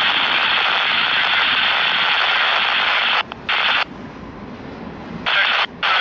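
Railroad radio scanner static: a loud, steady hiss that cuts off and back on abruptly several times from about three seconds in. The low rumble of the passing train shows through during the longest break.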